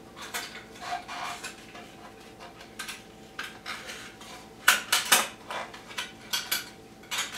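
Metal band clamp clinking and rattling against a carbon-fibre exhaust pipe guard as it is threaded through the guard's holes, with scattered light clicks and two sharper clinks about five seconds in.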